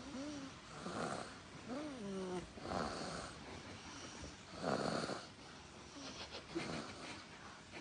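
Young child snoring in sleep: a rasping snore roughly every two seconds, the loudest about five seconds in, with a couple of short pitched rising-and-falling sounds in the first two seconds.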